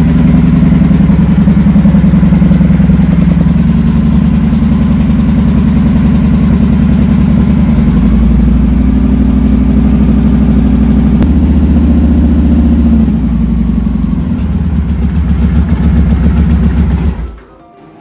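Victory Vegas motorcycle's V-twin engine running steadily, with its tone shifting a little about eight seconds in and again near thirteen seconds. It stops shortly before the end.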